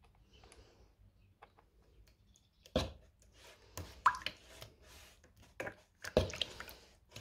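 A paintbrush stirring a watery black paint wash in a plastic bin: quiet at first, then liquid slopping with irregular sharp knocks of the brush against the plastic about three seconds in and onward.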